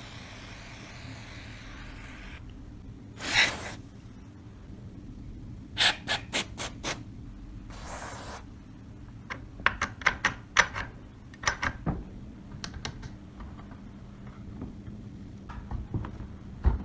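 Hand work on small parts: a stretch of rubbing, two short hisses, and runs of quick sharp clicks and taps.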